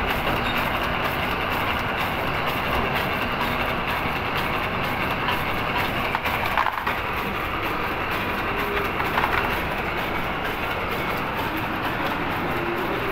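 Toffee cutting-and-wrapping machine running with a steady, dense mechanical clatter.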